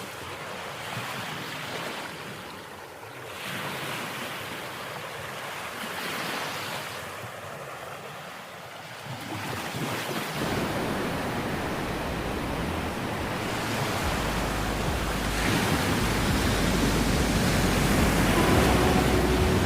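Ocean surf breaking and washing on a beach, swelling and ebbing. About halfway through, wind starts to buffet the microphone and the sound grows louder.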